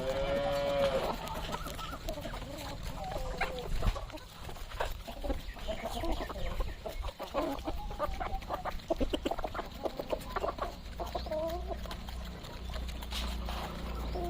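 A flock of Kadaknath chickens clucking, with one longer, strongly pitched call right at the start and many short calls and sharp clicks after it. A low rumble sits underneath for the first four seconds or so.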